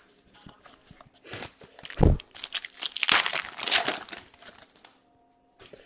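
Foil wrapper of a hockey card pack being torn open and crinkled by hand, with a short dull thump about two seconds in just before the crinkling.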